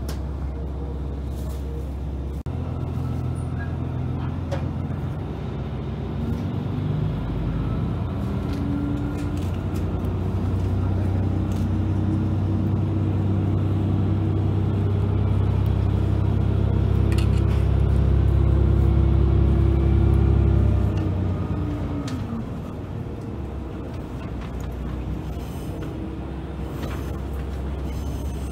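Diesel train engine, heard from inside the car, pulling away from a station: it opens up about two seconds in and climbs steadily in pitch and loudness as the train gathers speed. About three-quarters of the way through the engine note drops sharply, leaving a quieter running rumble with a few faint clicks.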